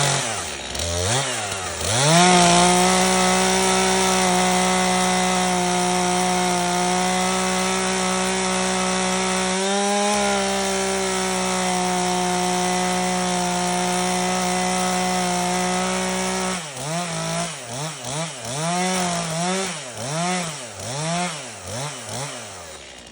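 Chainsaw revved up, then held at full throttle for about fourteen seconds as it cuts through a log, its pitch sagging briefly partway through. Near the end it is blipped up and down repeatedly, and it fades at the very end.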